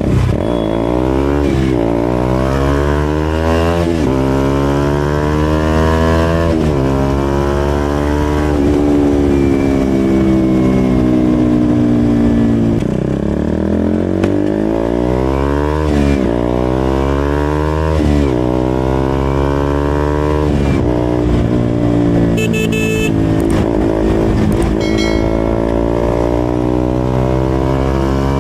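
KTM RC 200's single-cylinder engine breathing through a loud SC Project aftermarket exhaust, accelerating hard through the gears: the pitch climbs steadily and drops back at each upshift, several times over.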